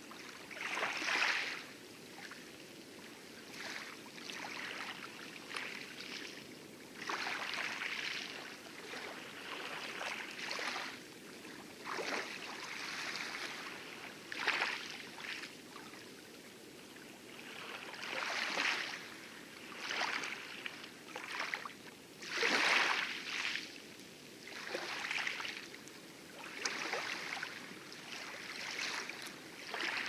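Water splashing and lapping around a small rowed dinghy in light chop, rising in uneven surges every second or two with the oar strokes, over a steady low wash of waves.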